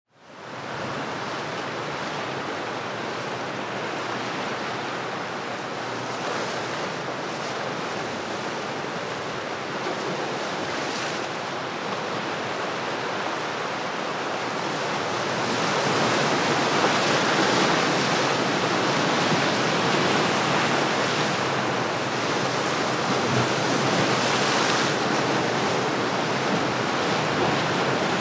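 Sea waves washing, a steady noise with no engine note, growing louder a little past halfway.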